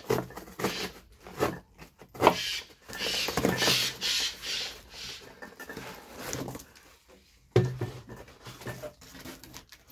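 A shipping parcel being cut and torn open by hand: packaging rustling, crinkling and tearing in irregular bursts, with a sharp knock about two seconds in and another near the end.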